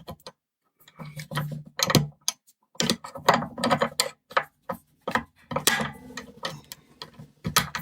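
Irregular metallic clicks and rattles from a four-lever Belfry No. 67 padlock being handled.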